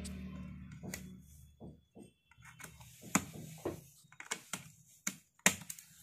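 Light metallic clinks and taps, most in the second half, from a thin sheet-metal shield being handled and lifted off a TV main circuit board. A low hum fades out in the first second or two.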